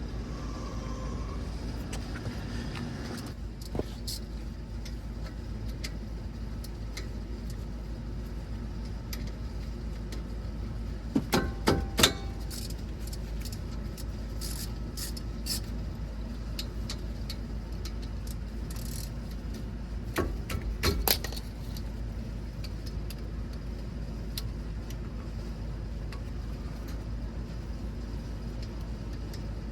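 Metal parts and tools clinking and rattling during brake work on a car, in two short clusters of sharp clinks about a third and two thirds of the way through, over a steady low hum.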